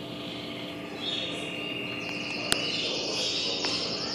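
High, buzzy chirping and trilling of birds that thickens about a second in, with one sharp click about halfway and a faint steady hum underneath.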